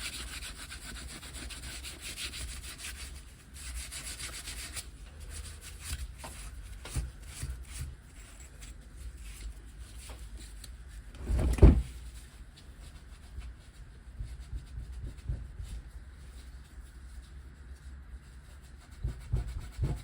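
Scrubbing and scraping on aluminium engine cases of a Minarelli AM6 50cc engine during cleaning, dense and hissy for the first few seconds, then in irregular strokes, with one loud knock about halfway through.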